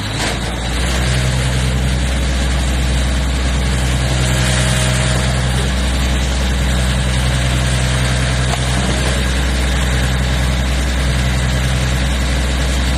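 Fishing boat's engine running steadily under way, a low drone that grows louder about a second in, over a steady hiss of water.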